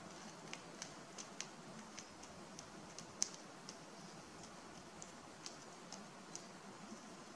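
Eurasian three-toed woodpecker pecking at a dead Norway spruce while feeding: faint, irregular sharp taps, about two a second, with one much louder tap about three seconds in.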